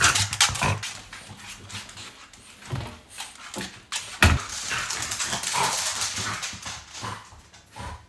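A French bulldog's noises as it moves about, over a run of sharp clicks and knocks, with one loud thump about four seconds in.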